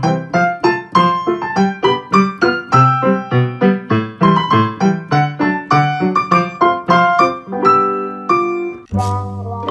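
Background music: a piano melody played in quick, evenly spaced notes, about three a second. A different piece begins near the end.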